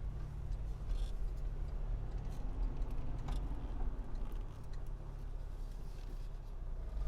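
Car engine running with a steady low rumble, a few faint clicks over it.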